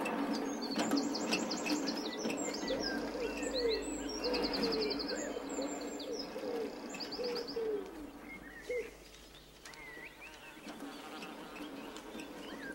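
Birds singing: quick high trills and chirps over a lower, repeated short call, thinning out after about eight seconds.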